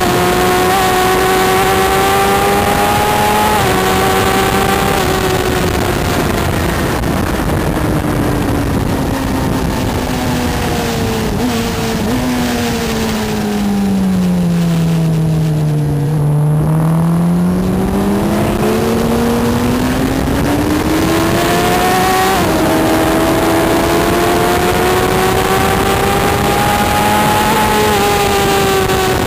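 Suzuki GSX-R1000 inline-four engine at speed under heavy wind rush: revs falling steadily for about ten seconds as the bike slows for a corner, then climbing again under hard acceleration, with a sudden drop in pitch from an upshift near the end.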